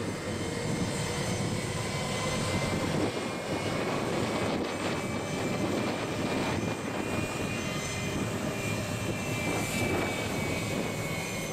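Boeing 767-300ER's twin turbofan jet engines at takeoff thrust during the takeoff roll: a steady roar with a high whine over it.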